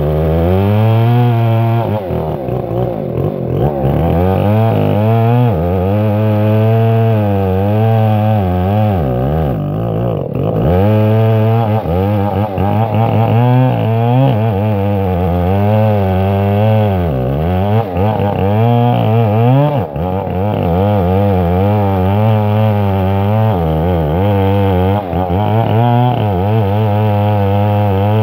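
Stihl 070 chainsaw's big single-cylinder two-stroke engine running flat out under load, ripping lengthwise through a timber beam. The engine note is steady and loud, its pitch wavering slightly up and down as the chain bites.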